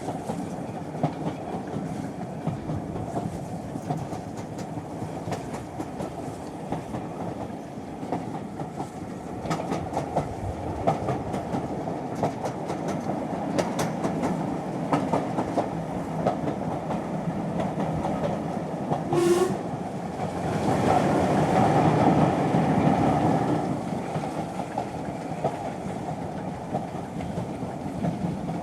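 Train running at steady speed, a continuous rumble with wheels clicking over rail joints. About two-thirds of the way through there is a brief pitched tone, followed by a few seconds of louder running before it settles back.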